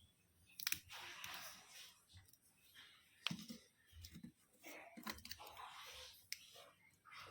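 Faint handling sounds: scattered sharp clicks with soft rustling in between.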